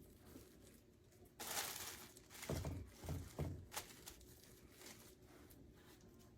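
Raw chicken breasts being laid into a crock pot: a brief rustle, then three soft, low thuds in quick succession and a light click.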